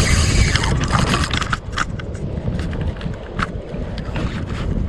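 Wind buffeting the microphone over water slapping against a kayak's hull, with a brief hissing splash at the start and a few sharp ticks.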